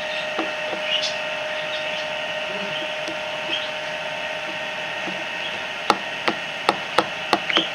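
Sharp clicks and taps from a utensil on a container while slime is being mixed, about six in quick succession near the end, over a steady background hum.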